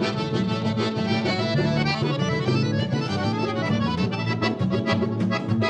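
A gaúcho vaneira played by a band, led by the accordion (gaita) over a steady dance beat, with quick runs of notes midway.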